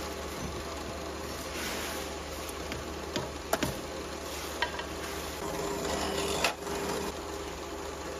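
Steady hum of factory machinery with a hissy background, broken by a few light clicks and knocks of metal parts being handled, about three to six seconds in.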